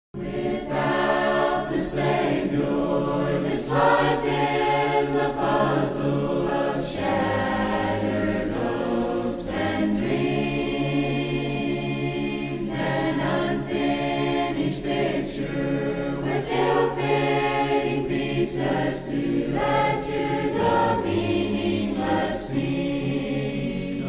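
A choir singing, held sung notes with clear sibilant consonants.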